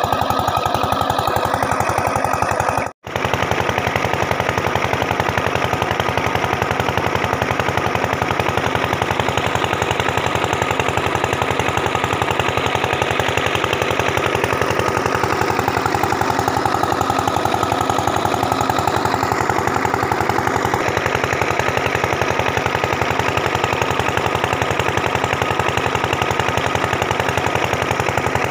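Small single-cylinder diesel engine of a pump set running steadily with a fast, even knocking beat as it drives a water pump. The sound cuts out for an instant about three seconds in.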